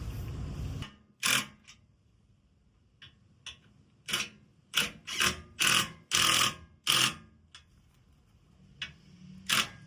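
A dozen or so short, sharp clicks and clacks at uneven intervals, the sounds of hand tools and bolts being worked while fitting the filler plate to the skid plate. A steady background noise stops about a second in.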